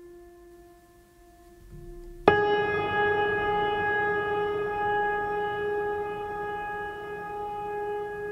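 Background music of long held, organ- or wind-like tones. About two seconds in, a new and louder chord comes in suddenly and is held, slowly fading.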